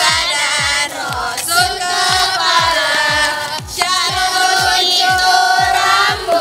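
Music with a steady kick-drum beat about twice a second, and a group of female voices singing together over it.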